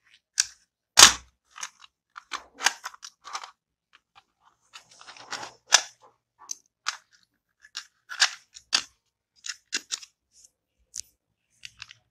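Hard plastic screwdriver case and its screwdrivers being handled: irregular clicks, taps and crackles, with one louder thump about a second in.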